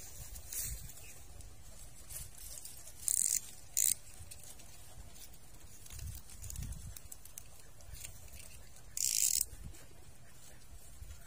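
Three short rustling hisses, about three seconds in, again just before four seconds, and about nine seconds in, over a faint low rumble.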